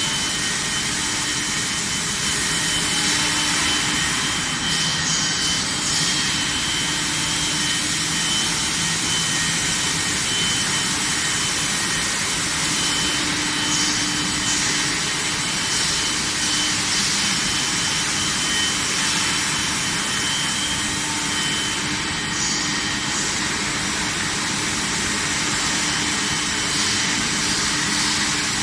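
Induction quenching and tempering furnace running: a steady, loud machine hiss with a few thin, steady high-pitched tones over it.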